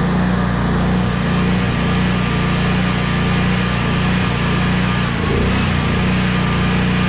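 Generac 15,000-watt portable generator engine running steadily at constant speed, a loud, even drone.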